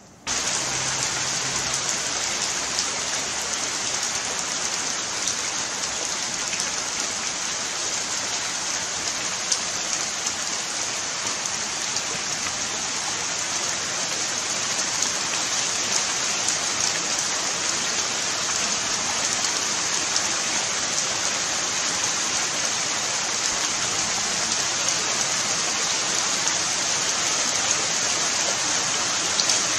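Steady, heavy rain falling on foliage and fields, an even hiss of countless drops with no lull.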